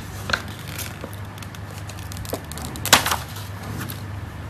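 Plastic credit card being peeled off the glue that holds it to a paper information sheet: paper crackling and rustling with a few sharp clicks, the loudest about three seconds in.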